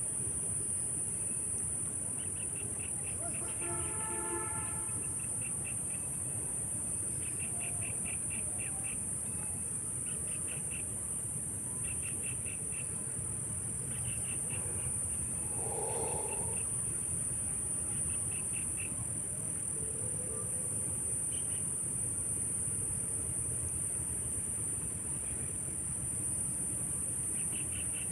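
Insects singing: a steady, high-pitched drone, with short bursts of rapid chirping repeating every second or two. A brief, lower call comes about halfway through.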